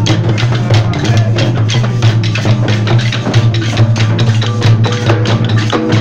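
Bumba-meu-boi sotaque de matraca percussion: large pandeirões frame drums struck by hand together with clacking wooden matracas, in a fast, even rhythm over a low steady drone.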